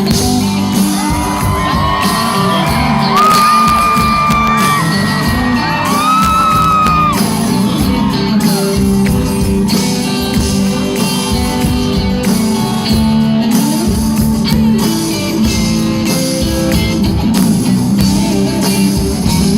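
Live pop-rock band playing loudly in a large hall, with sung vocals and shouting over it; held sung notes stand out in the first half.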